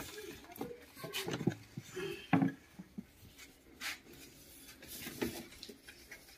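Handling sounds from unpacking an oil-filled radiator heater: irregular rubbing and scraping of packaging, with scattered light knocks and one sharper knock about two and a half seconds in.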